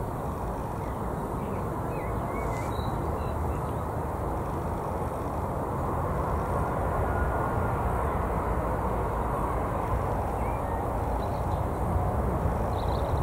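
Jet airliner engine noise at an airport runway: a steady low rumble that slowly grows louder, with no sharp events.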